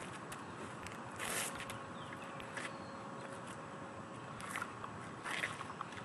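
A few brief swishes of a waxwood kung fu staff swung through the air, mixed with scuffing footsteps, over a steady outdoor hiss. The clearest swish comes a little over a second in, with more near the end.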